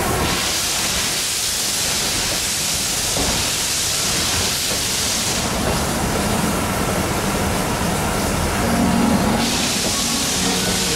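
Vintage passenger coaches of a steam-hauled train rolling slowly past a platform. There is a steady rumble of wheels on rail, and two long stretches of loud hissing: one stops about halfway through and the other starts again near the end.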